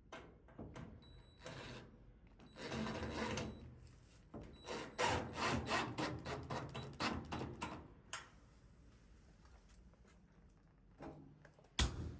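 Rubbing and scraping handling noises. There is a run of quick rasping strokes about five to seven seconds in, and a sharp knock near the end.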